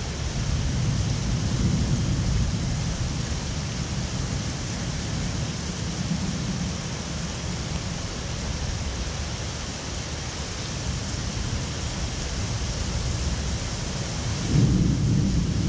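Thunderstorm: steady rain hiss under a low rolling rumble of thunder, with a louder thunder roll coming in near the end.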